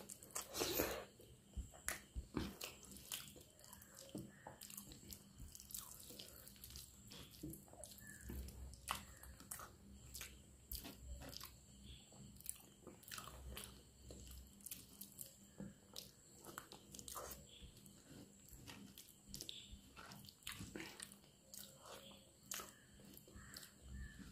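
Close-up eating sounds: a person chewing mouthfuls of rice and dal with wet mouth smacks, and a hand squishing and scooping the rice and dal. It comes as many short, irregular clicks and smacks.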